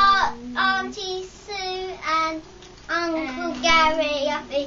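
A young girl singing in a sing-song voice with long held notes, ending on the word "ladybug".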